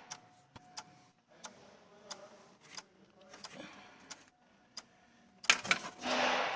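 Scattered light clicks and taps from handling tools and test leads while checking a ground connection, with a louder click about five and a half seconds in followed by a short hiss.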